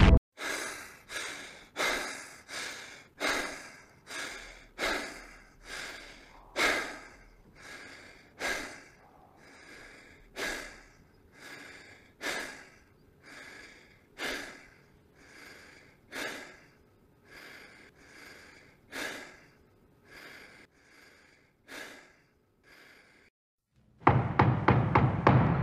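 A person's heavy, ragged breathing: short gasping breaths about every 0.7 s, alternating louder and softer, growing fainter and sparser until they stop. Loud music comes in near the end.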